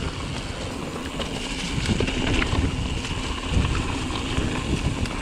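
Wind rushing over the microphone and knobby tyres rolling over rooty dirt singletrack as a Pivot Mach 5.5 full-suspension mountain bike is ridden downhill, with a few sharp knocks as the bike rattles over roots.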